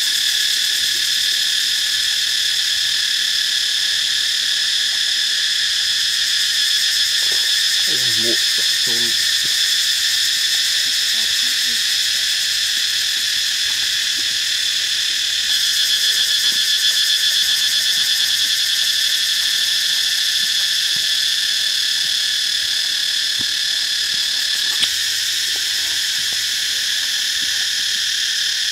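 Steady, shrill drone of a chorus of forest insects, several high pitches held without a break. A brief low call sounds about eight seconds in.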